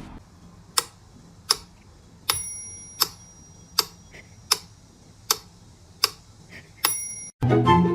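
Steady ticking, about four ticks every three seconds, with a short bell-like ding ringing over two of the ticks. Music cuts in near the end.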